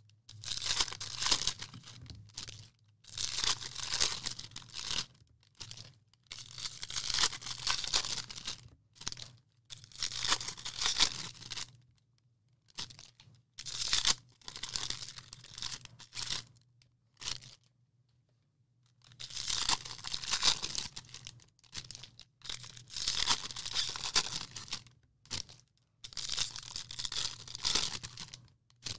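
Sports-card box and pack wrapping being torn open and crinkled, in repeated tearing bursts of one to two seconds with short pauses and one longer pause over halfway through, over a faint steady low hum.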